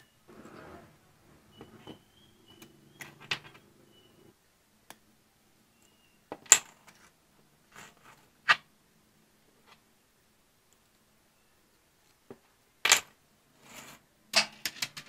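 Close-up handling of small hard objects: a soft rubbing over the first few seconds, then scattered sharp clicks and taps, a few of them loud.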